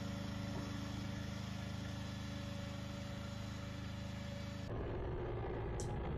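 Small tractor engines running steadily under load while plowing. About three-quarters of the way through, the sound changes abruptly to a second, noisier tractor engine.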